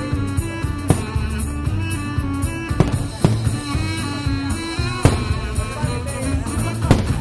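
Fireworks show soundtrack music with a heavy drum beat under melodic lines, punctuated by several sharp bangs a second or two apart.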